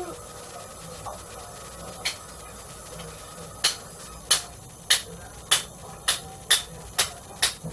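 A run of sharp, short knocks or taps, about two a second, starting a little over halfway through.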